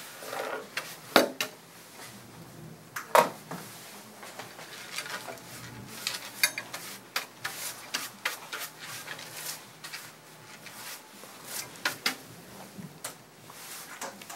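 Hand broom sweeping clipped dog hair off a rubber-topped grooming table: irregular brushing scrapes and sharp knocks and taps.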